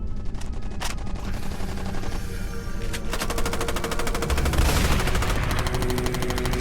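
Rapid automatic gunfire that becomes denser and louder about three seconds in, over music with steady held tones.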